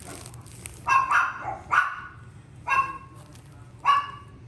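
Small Maltese dog giving a run of short, high-pitched yaps, about one a second, starting about a second in.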